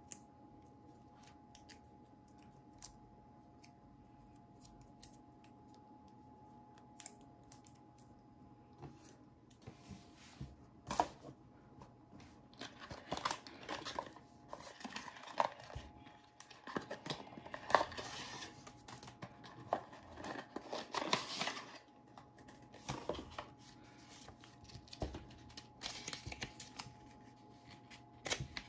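Paper and thin cardboard packaging handled and unfolded by hand: scattered crinkles and ticks at first, then dense rustling and crinkling through the middle, thinning out again near the end.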